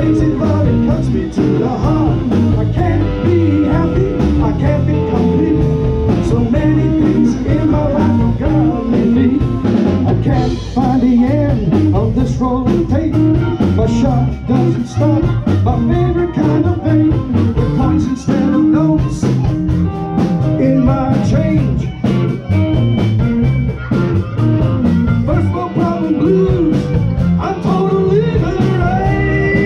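Live blues band playing: electric guitars, bass and drums with a sung lead vocal. Near the end several notes bend upward.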